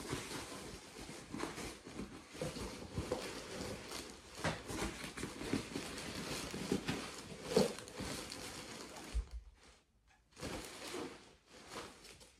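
Hands rummaging through a rucksack: irregular rustling and crinkling of the bag and the things inside it, with small clicks and soft knocks as items are moved, pausing briefly near the end.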